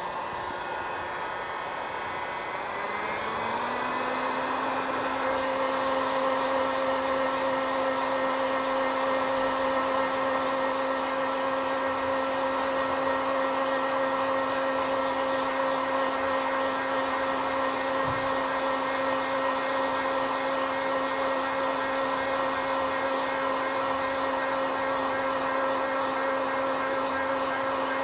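Handheld electric heat gun (industrial hot-air dryer) running, drying paper wet with cyanotype sensitizer: its fan motor whine rises in pitch about three seconds in, then holds steady with a constant rush of air.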